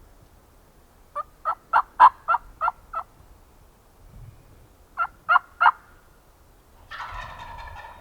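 Turkey yelping: a run of seven short, evenly spaced yelps, then three more. Near the end comes about a second of gobbling, a turkey answering.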